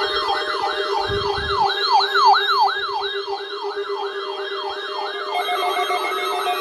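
Electronic siren yelping, its pitch sweeping up and down quickly about two and a half times a second over a steady low hum, with a steady tone joining near the end. It is sounded as the attention signal of an emergency alert for a tornado drill.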